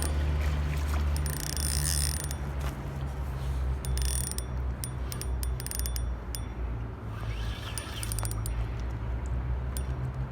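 Fishing reel clicking and ratcheting while a salmon is being played on the line, with short hissy swells about every two or three seconds, over a steady deep wind rumble on the microphone.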